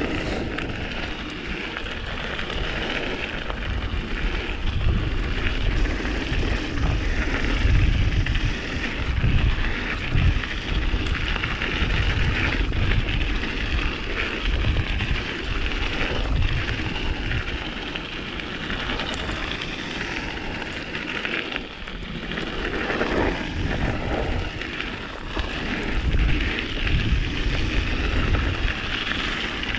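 Mountain bike riding down a frozen dirt trail: tyres rolling and rattling over the ground, with wind gusting on a chest-mounted GoPro's microphone, the rumble swelling and dipping throughout.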